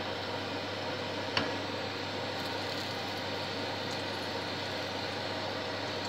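Steady hiss of pancake batter frying in a pan over a gas burner, with one light clink about a second and a half in as the pan is shifted on the hob.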